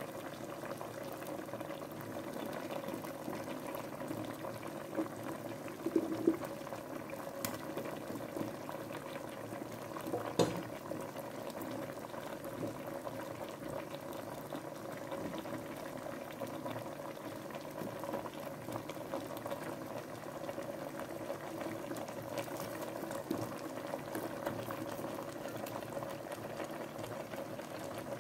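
Pot of water with plantain pieces at a steady rolling boil, bubbling evenly, the plantain nearly cooked. A couple of brief knocks stand out about six seconds and ten seconds in.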